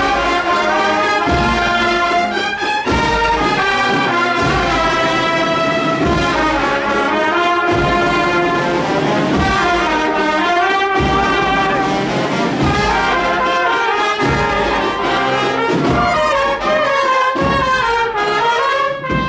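A Spanish Holy Week agrupación musical (cornets, trombones and drums) playing a procession march, the brass carrying the melody over steady drum beats.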